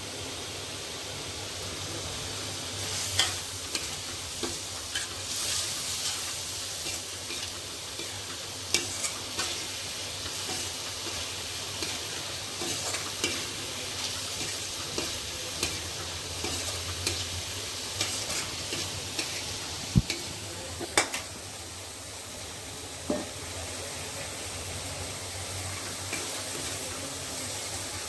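Soaked makhana (fox nuts) sizzling in an oily fried masala in a pan while being stirred, with a steady hiss and irregular clicks of the spoon against the pan, the sharpest about twenty seconds in.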